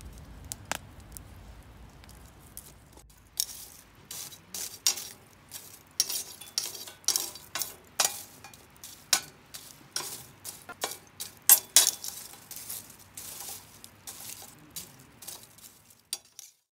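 Wood fire crackling, with irregular sharp pops that start about three seconds in, come several a second at times, and cut off suddenly near the end.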